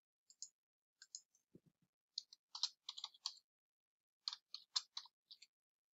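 Faint clicks of a computer mouse and keyboard: a few single clicks, then two quick runs of keystrokes typing a word into a search box.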